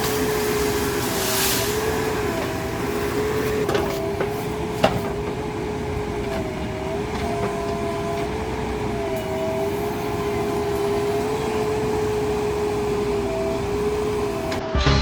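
JCB 3DX Super backhoe loader's diesel engine running steadily under work, with a whining note that wavers slightly in pitch. A single sharp clank comes about five seconds in, and music cuts in right at the end.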